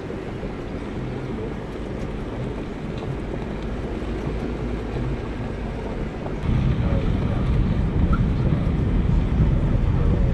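A vehicle driving slowly over a gravel yard, heard from inside the cabin: a steady low rumble of engine and tyres on the loose surface, growing louder about six and a half seconds in.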